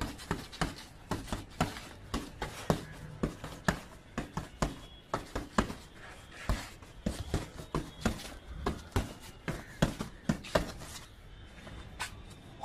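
Bare fists punching a filled sack hung up as a punching bag, landing as sharp, short thuds in quick irregular combinations, about two to four a second.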